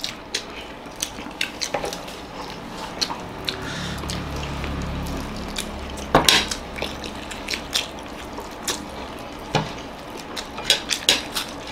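A fork clinking and scraping against ceramic dinner plates as people eat: scattered irregular clinks, the loudest about six seconds in.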